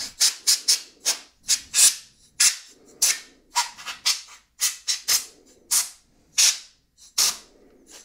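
Canned compressed air duster spraying in many short hissing bursts, about two to three a second, blowing dust out of a laptop's open insides.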